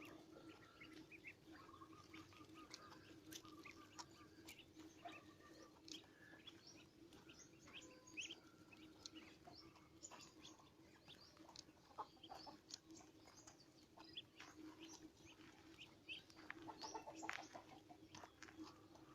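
Faint chirping of birds: many short, scattered calls over a steady low hum.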